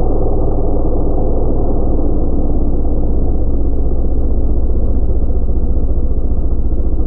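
Stihl 661 C two-stroke chainsaw idling steadily, sounding muffled with its high end cut off.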